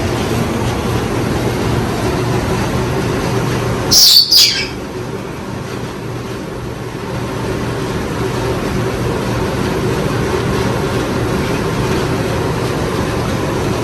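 Hampton Bay Windward II ceiling fan running with a steady motor hum, held below full speed by a bad capacitor. About four seconds in, a loud, short, high double chirp cuts through.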